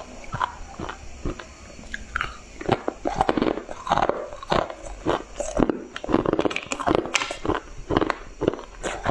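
A person biting and chewing hard pieces of ice close to a lapel microphone: a few sharp cracks at first, then rapid, dense crunching from about three seconds in.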